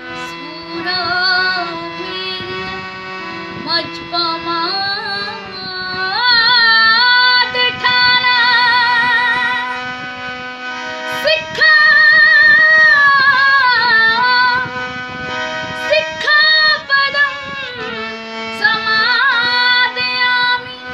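A woman singing a Buddhist devotional song (Buddha vandana) in Hindi, with wide vibrato, over backing music of long held notes. She is loudest a third of the way in and again just past halfway.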